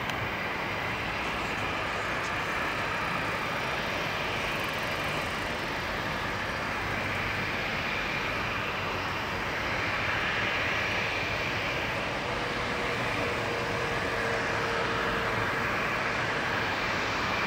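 Boeing 737-700 BBJ's twin CFM56-7B turbofan engines at taxi power, a steady jet hiss and rumble that grows slightly louder about ten seconds in as the aircraft taxis closer.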